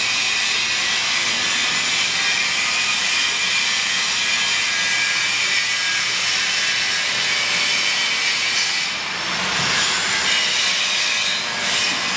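Shoe repair finishing machine running steadily: its motor, spinning polishing wheels and built-in dust extraction give a steady whirring hiss with a few faint high whines, dipping briefly about nine seconds in.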